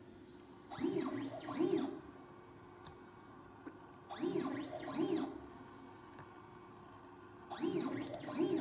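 Motorised XY stage of a ColorScout A+ positioner moving a Ci64 spectrophotometer from patch to patch over a colour chart. Three bursts of motor whine, each about a second long and rising and falling in pitch twice, come about every three and a half seconds, with quieter pauses between them while each patch is measured.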